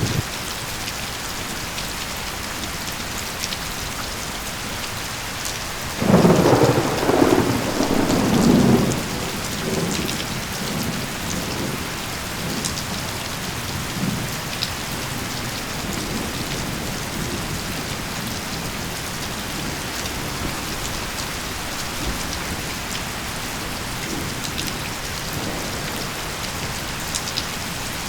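Steady rain falling. About six seconds in, a roll of thunder rumbles, loudest for about three seconds, then dies away in weaker rumbles over several more seconds.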